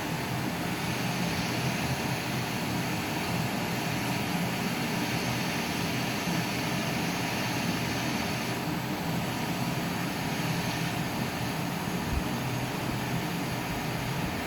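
A steady mechanical drone with a low hum.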